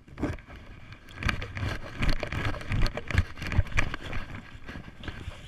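Quick footsteps crunching through deep snow, a run of irregular thumps and crunches.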